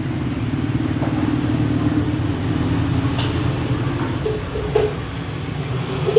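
A small engine running steadily with a rapid low pulse, and a few light knocks over it.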